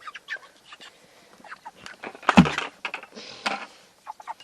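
Young meat chickens clucking in short calls as they crowd in to feed, with a loud thump about two and a half seconds in.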